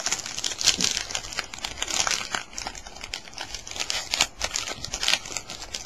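A trading-card pack wrapper being torn open and crinkled by hand: a run of quick, irregular crackles.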